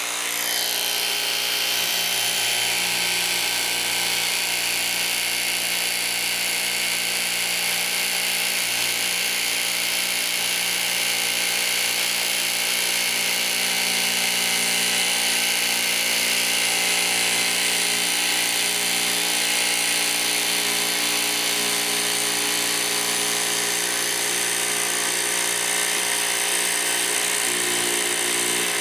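Milwaukee M18 Fuel barrel-grip jigsaw's brushless motor running steadily at its fastest speed, with the orbital action off, its blade cutting a cope through primed wooden baseboard: a constant, even motor whine with the blade's rapid stroking.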